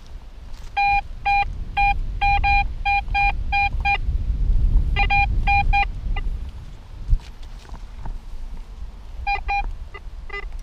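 Metal detector sounding short, evenly pitched beeps, two to three a second, as its coil is swept over the ground: a run of about ten, a shorter group of four midway, and more near the end, the tone of the detector reporting metal under the coil. Wind rumbles on the microphone underneath.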